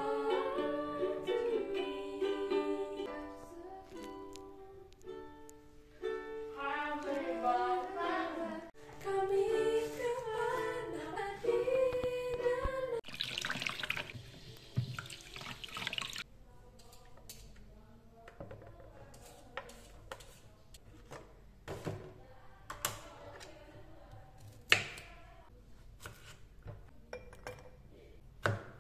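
Ukulele strummed with voices singing along for about the first thirteen seconds. Then a kitchen tap runs into a plastic basin for a few seconds. After that come scattered sharp knocks of a knife chopping vegetables on a cutting board.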